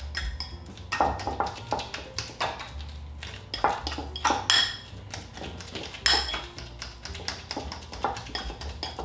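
Metal fork mashing ripe bananas against the side of a glass bowl: irregular clinks and scrapes as the tines strike the glass, some with a brief ring.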